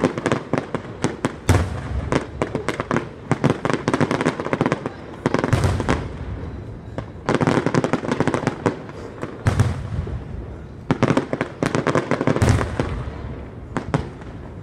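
Aerial fireworks going off: a dense run of sharp pops and crackles, broken by four deeper booms spaced a few seconds apart as shells burst overhead.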